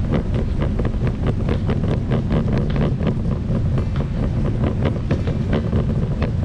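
Loaded cart's wheels rolling across a smooth floor: a steady low rumble with many light clicks and rattles through it.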